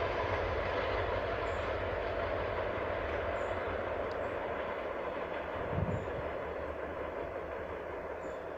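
CN train #559's diesel locomotive and its wheels on the rails, running steadily and slowly fading as the train moves away. A brief low bump comes about six seconds in.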